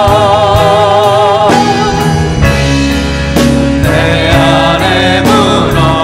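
Live contemporary worship music: a male lead voice sings the chorus of a Korean praise song with vibrato over a band with bass and a steady drum beat, with other voices joining in.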